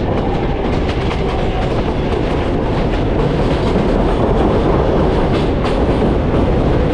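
New York City subway L train running along the track: a steady loud rumble and rattle, with clicks of the wheels over rail joints.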